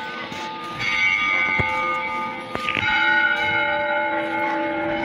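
Church bells ringing, with fresh strikes about a second in and again near three seconds, their tones hanging on between strikes.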